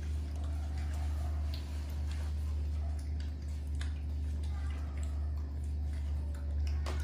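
Monkeys eating mango slices: a few faint, scattered ticks and smacks of handling and chewing over a steady low hum.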